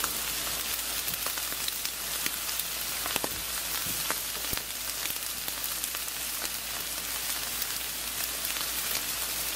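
T-bone steak sizzling on a charcoal grill: a steady hiss with scattered crackles and pops from the fat and the coals.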